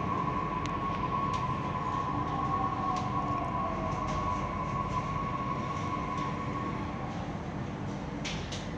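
Delhi Metro train decelerating into a station, heard from inside the coach: a steady electric whine and a second whine that falls in pitch as the train slows, over a low running hum, with a few light clicks. The whine fades out near the end as the train comes to a stop.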